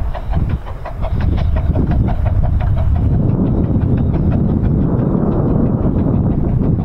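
Romney, Hythe & Dymchurch Railway No. 8 Hurricane, a 15-inch gauge steam locomotive, working its train: quick, evenly spaced exhaust beats, then about three seconds in a louder steady rumble takes over as the train runs past.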